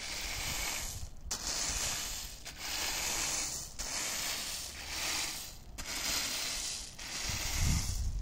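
Wooden rake dragged through a layer of in-shell hazelnuts on a tarp, the nuts rattling in repeated strokes about every second and a half as they are turned to dry.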